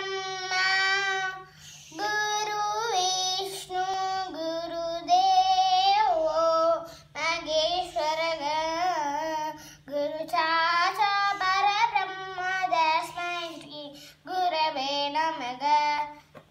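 A young girl singing alone and unaccompanied, in long held phrases with short pauses between them, over a faint steady low hum.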